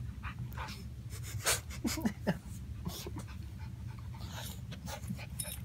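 A small dog panting in quick breaths close to the microphone, over a steady low hum.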